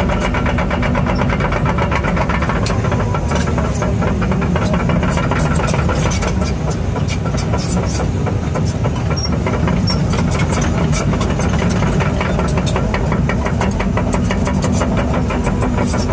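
Engine running steadily at a constant speed, with a fast, even clatter.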